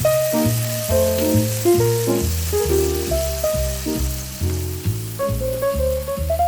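Instrumental background music with a steady bass line and a melody of short notes, over a fainter hiss of food sizzling in a frying pan.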